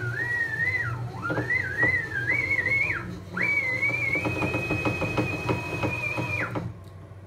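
X-axis drive of a CNC-converted G0704 mill being jogged: stepper motor turning the freshly rebuilt, preloaded 1605 double-nut ball screw, moving the table. It gives a whistling whine that wavers up and down in pitch as the speed changes, then holds one steady pitch for about two seconds with a fast, light ticking under it, over a low hum. It all cuts off suddenly near the end as the table stops.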